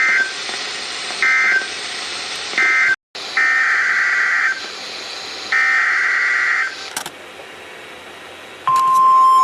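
EAS/SAME digital data bursts on NOAA Weather Radio, a harsh buzzy warble: three short bursts, the end-of-message code, then after a brief dropout two longer bursts, the header of the next alert. A steady single-pitch alert tone starts near the end.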